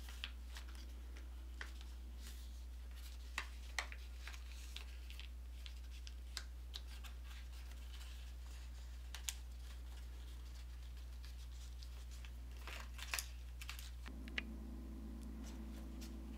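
Origami paper rustling and crinkling as it is folded and creased by hand, with scattered small sharp crackles, over a steady low hum.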